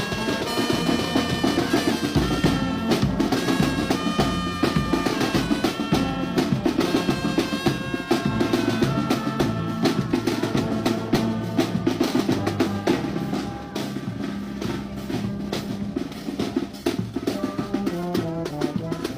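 Brass band playing, with snare and bass drums beating a dense, driving rhythm under held horn notes.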